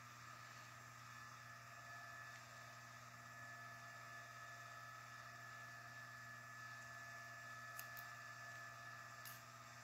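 Near silence: a steady faint hum of room tone, with a few faint small clicks near the end.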